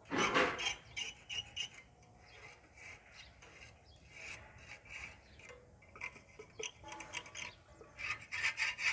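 A tool scraping over a rough, gritty surface in irregular strokes: one loud, longer scrape at the start, then shorter scrapes that bunch together again near the end.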